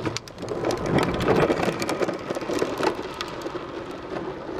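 Hard plastic wheels of a Big Wheel tricycle rolling on asphalt: a gritty rumble full of small clicks, loudest about a second in, then easing as it rolls away.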